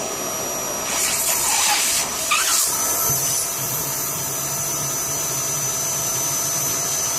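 Vacuum cleaner running with a steady high whine, sucking on a split-system air conditioner's drain hose to clear a blockage. The rush of air changes briefly between about one and two and a half seconds in, and a low hum joins about three seconds in.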